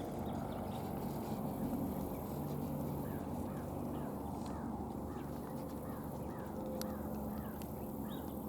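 Scissor-tailed flycatchers calling: a quick run of short, falling notes a few seconds in, over a steady low rumble.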